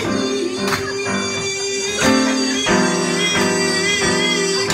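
Live music: a man singing long held notes with vibrato, accompanied by a grand piano.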